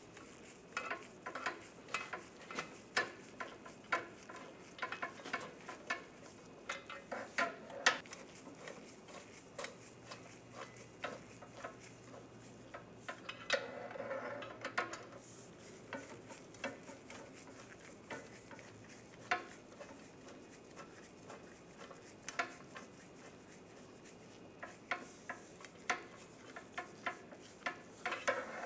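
Light metallic clicking and clinking of steel nuts being threaded onto the catalytic converter's flange studs, with a brief scrape about halfway through.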